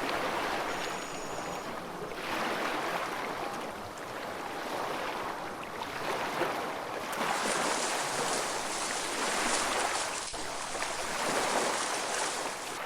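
Sea water washing and surging, swelling and easing every two or three seconds, with a hissier wash from about seven seconds in.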